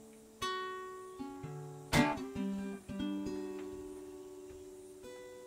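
Acoustic guitar played slowly in a song's intro: single notes and chords plucked and left to ring, each fading slowly, with a louder, sharper strum about two seconds in.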